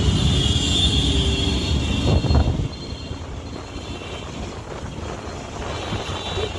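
Road traffic heard from a moving vehicle in city traffic: engine and tyre rumble with wind buffeting the microphone. It is loud for the first two and a half seconds, then drops to a quieter steady rush.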